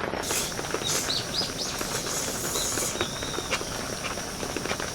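Steady rain pattering, with a handful of short, high, bird-like chirps between about one and three and a half seconds in.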